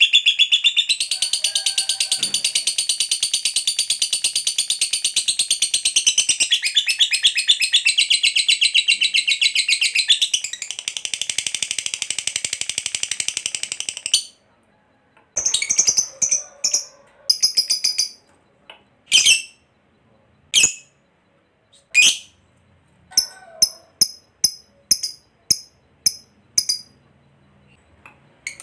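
Fischer's lovebird giving a long unbroken ngekek, a rapid high-pitched chattering trill, for about fourteen seconds, then a dozen or so separate short sharp chirps. This long continuous chatter is the ngekek panjang that lovebird keepers prize and play to get other lovebirds calling.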